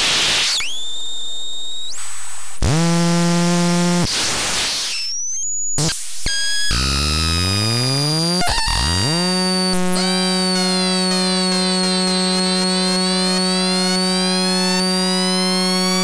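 SyncSawSynth software synthesizer's sawtooth oscillators playing harsh, noisy tones with pitch glides and a few brief cut-outs, then, from about ten seconds in, one steady buzzing tone whose overtones sweep up and down as the oscillator sync is modulated.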